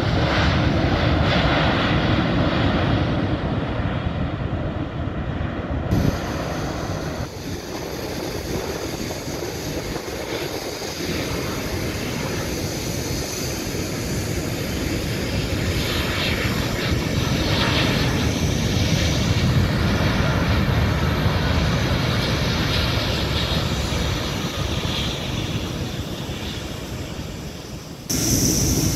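Jet airliner engines: a KLM Boeing 787 rolling out on the runway just after touchdown, then, after a cut about six seconds in, a twin-engine widebody airliner on final approach whose engine noise swells as it comes closer. Another cut comes near the end.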